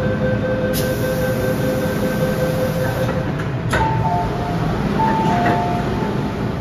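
Hong Kong MTR M-train doors at a platform: a steady door warning tone sounds over the rumble of the standing train, then the doors shut with a knock. Soon after, a pair of higher two-note tones sounds twice as the doors open again.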